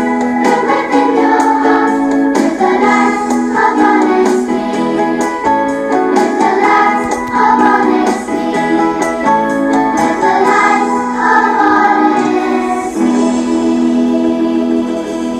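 A song: singing over keyboard accompaniment, the singing giving way to a held keyboard chord near the end.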